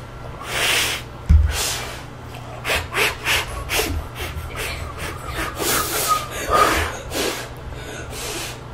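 Instant noodles being slurped close to a microphone: repeated short, loud sucking slurps with breaths between them. A single low thump about a second in.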